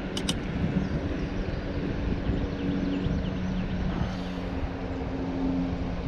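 A distant engine drones steadily over low rumbling wind and water noise, with two sharp clicks right at the start.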